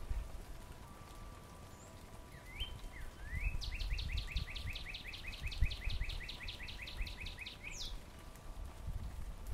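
Northern cardinal singing: two rising slurred notes, then a fast run of about twenty repeated slurred notes, roughly five a second, ending on a sharp upward note.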